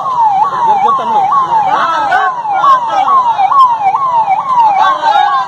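Electronic siren wailing in a fast yelp, its pitch sweeping up and down about twice a second, over the chatter of a marching crowd.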